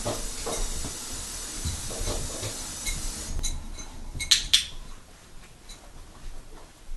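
Paws and claws of a dog stepping onto and around a hard pet food bowl, making scattered clicks and clinks; the loudest are two sharp clicks close together about four seconds in.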